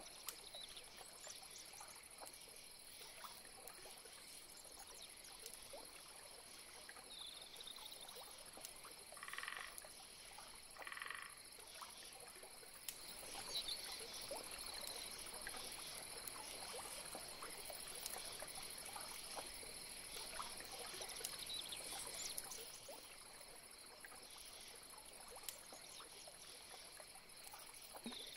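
Faint swamp chorus: frogs croaking, with two short croaks about a third of the way in, over a steady high insect buzz.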